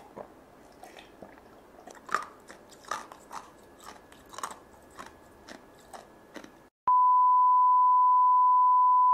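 Close-miked chewing with crisp, irregular crunches for the first six seconds or so. After a brief cut to silence about seven seconds in, a loud, steady single-pitch beep tone takes over until the end.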